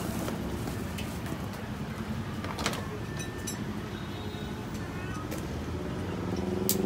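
Steady rumble of road traffic, with a few sharp clicks; near the end a vehicle engine revs up, its pitch rising.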